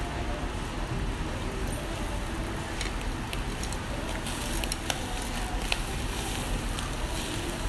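Mackerel fillet sizzling and crackling on a wire-mesh grill over charcoal. A few sharp clicks of metal tongs on the mesh come from about three seconds in as the fish is turned, and the sizzle grows brighter after that as fat drips onto the coals and flares.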